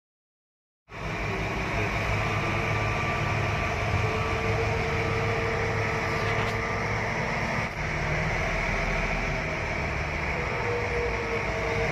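Caterpillar 777 haul truck's diesel engine running while driving, heard inside the cab as a steady hum. It starts abruptly about a second in and dips briefly about seven and a half seconds in.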